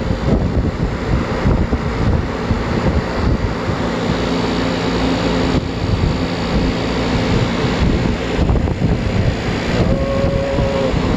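Carrier reefer container refrigeration unit running steadily, its compressor and condenser fan humming as it pulls the box down from about 76 °F toward a −15 °F set point, with wind buffeting the microphone.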